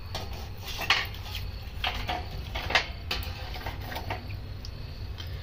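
A knife blade prodding and knocking charcoal lumps in a small metal barbecue grill: a few irregular clicks and clinks, the sharpest about a second in and near three seconds in, over a low steady hum.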